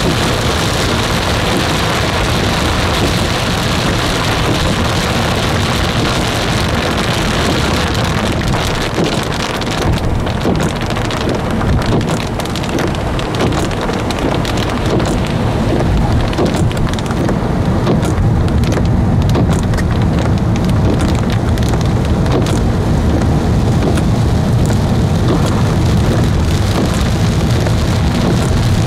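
Heavy downpour falling steadily, with a deep rumble underneath that grows louder in the second half.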